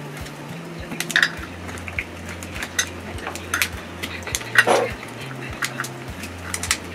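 Irregular small clicks, clinks and scrapes of a thin hand tool prying at a glued-in Redmi A9 phone battery softened with isopropyl alcohol, with one louder scrape about halfway through.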